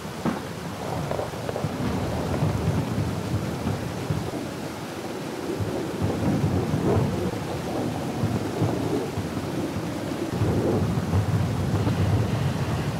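Steady rain with rolling thunder, the low rumbles swelling a few times.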